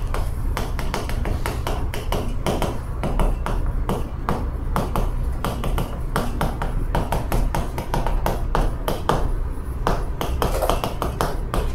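Chalk writing on a chalkboard: irregular quick taps and short scratches as each stroke hits the board, over a steady low hum.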